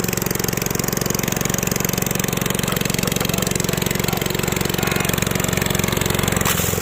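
Single-cylinder lawn mower engine, straight-piped with its muffler and airbox removed, running steadily with a rapid, even train of raw exhaust pulses.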